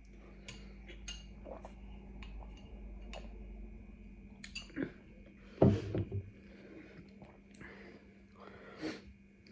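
Eating at a table: cutlery clicking and clinking against a plate and dishes, with a louder cluster of knocks about six seconds in.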